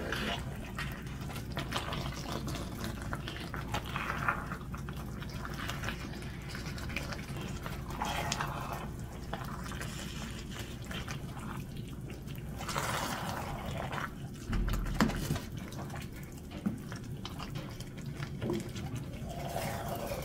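Wooden spoon stirring a thick, saucy pot of spaghetti, meatballs and lentils: wet squelching and sloshing that swells with each stroke every few seconds.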